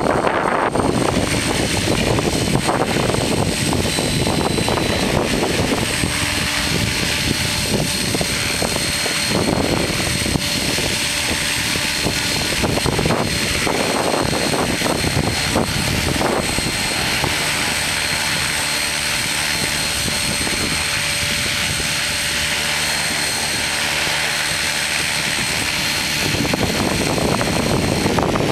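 Align T-Rex 600EFL Pro electric RC helicopter in flight: the steady rush of its rotor blades with a high motor whine over it. Wind buffets the microphone in gusts.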